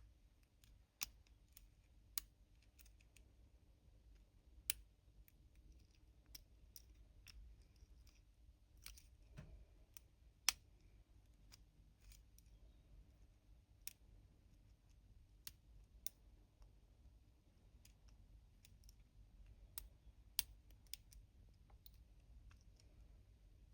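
Lock pick and tension wrench working the pins of a padlock held in the hand: sharp metallic clicks and ticks at irregular intervals, the loudest about ten and a half seconds in.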